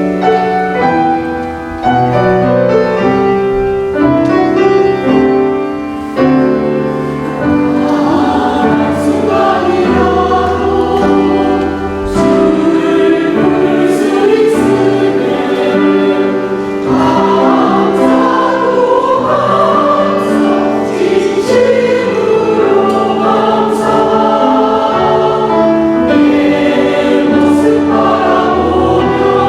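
Church choir singing a Korean sacred anthem in continuous, sustained phrases.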